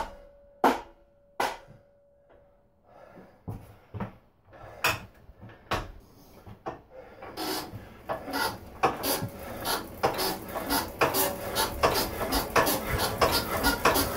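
Metallic clicks and rasps from hand-worked controls on a 1940s Lister JP4 diesel as it is readied for a hand-crank start, with the engine not yet running. There are a few sharp knocks and a faint ringing tone near the start, then scattered clicks, becoming a dense run of quick clicks and scrapes from about halfway.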